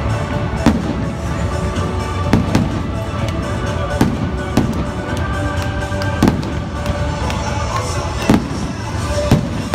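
Aerial firework shells bursting in a display, with sharp bangs coming irregularly, about one every second.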